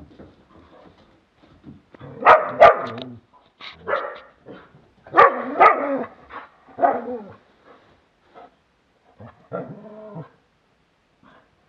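Dogs barking in rough play, in several short bouts of quick barks, loudest about two and five seconds in.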